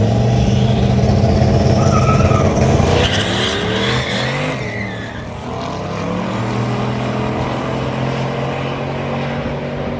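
Loud car engine running, its pitch sweeping up and down between about three and five seconds in, then settling into a steady idle.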